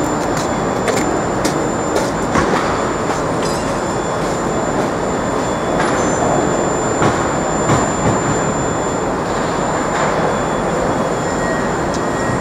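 Steady rumble of a moving vehicle, with scattered clicks and knocks.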